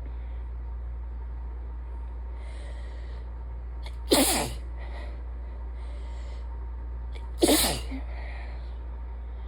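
A person sneezing twice, about three seconds apart: congested, sick-sounding sneezes at the end of a sinus infection. Each is a sudden loud burst with a voice that falls in pitch, and softer breathy intakes of air come before and between them.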